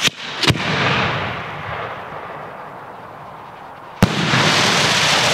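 A 4-inch cylinder farfalla firework shell fired from a mortar tube. A sharp bang of the lift charge opens, with a second crack half a second later and a fading hiss as it climbs. About four seconds in a sharp bang marks the shell bursting, followed by a loud rushing hiss from its effects.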